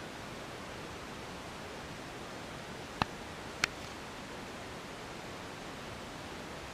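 Steady, even outdoor hiss with two sharp clicks about three seconds in, a little over half a second apart.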